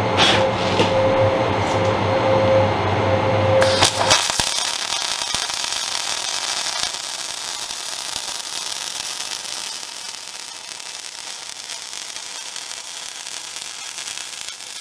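MIG welding arc crackling and hissing steadily as a bead is run along a steel corner seam, starting about four seconds in. Before it there is a steady electrical hum with a few sharp clicks.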